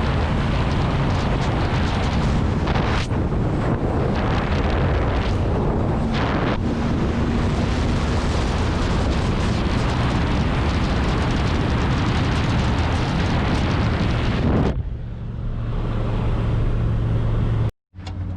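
Truck driving at road speed, with loud rushing wind and road noise over a low engine hum. About fifteen seconds in, the rushing falls away, leaving a steadier low engine drone. The sound cuts out briefly near the end.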